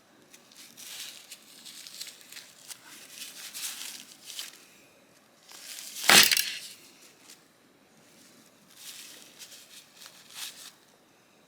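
Paper towel rustling and crinkling in bursts as small knife parts are wiped clean, with one louder, sharper crumple about six seconds in.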